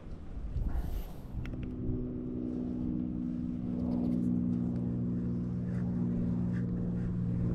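A small boat's motor running with a steady, even hum that comes in about a second and a half in.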